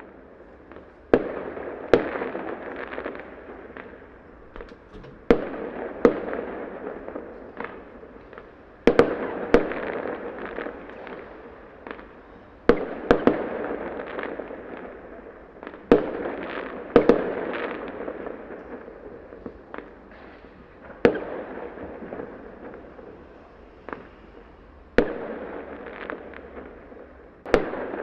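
Small fireworks going off: a sharp bang every one to four seconds, some in quick pairs, each followed by a few seconds of fading crackle and hiss.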